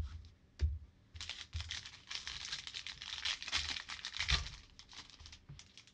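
Foil Panini Prizm card pack torn open by hand: a dense crinkling and tearing of foil for about three seconds, with a few low knocks as packs and cards are handled on the table.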